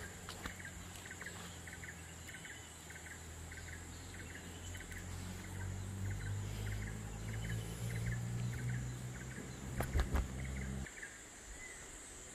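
Insects calling in the orchard: a steady high-pitched drone with a short chirp repeating about twice a second, over a low hum that stops near the end. A few knocks about ten seconds in are the loudest sounds.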